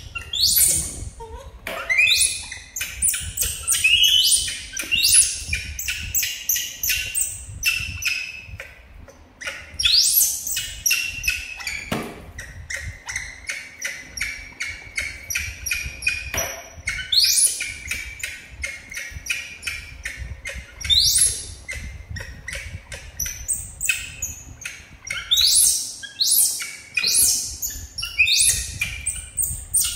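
Baby macaques giving repeated short, high, rising squeaks and chirps as they wait for the quail eggs being peeled, with light clicks of eggshell cracking and peeling by hand in between.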